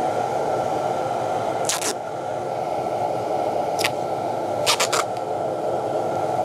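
Duct tape being pulled off the roll and wrapped around the bottom of a spelter socket: short ripping strips of tape about 2 s, 4 s and 5 s in, the last a quick run of two or three. They sound over a steady rushing background noise.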